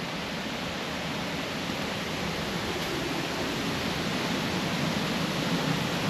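Steady rushing water of a waterfall, growing slightly louder.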